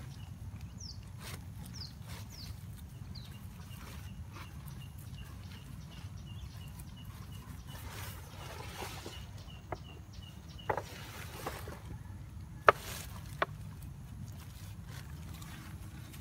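Hands working crumbly garden soil around transplanted seedlings, with handling of the handheld phone: soft scraping and a few sharp knocks, the loudest about three-quarters of the way through, over a steady low rumble. Faint bird chirps in the first few seconds and a faint regular ticking in the background.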